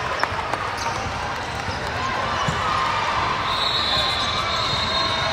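Basketball bouncing on a gym floor during a game, with voices echoing in the hall. A steady high-pitched tone comes in a little past halfway.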